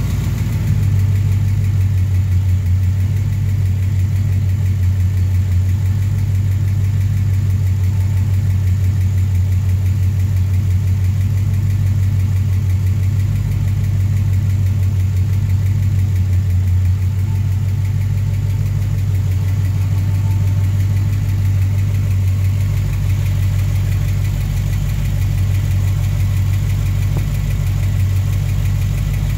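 Ford 289 small-block V8 in a 1965 Mustang, fitted with FiTech throttle-body fuel injection, idling steadily. A tick comes off the left cylinder bank, which the owner traced to a loose rocker arm.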